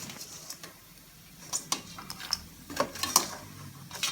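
A metal utensil clinking and scraping against a pot in a scatter of short, sharp knocks, as freshly fried pork cracklings are scooped out of the pot.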